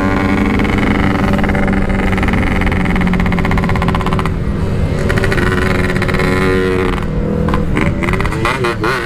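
Yamaha RX-King 135 cc two-stroke single running under way through an aftermarket packed exhaust, holding steady revs at first; about seven seconds in the engine pitch drops and wavers up and down as the revs change.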